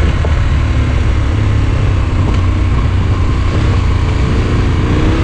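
Motorcycle engine running at a steady riding speed on a gravel road, mixed with steady wind and road noise from the moving bike.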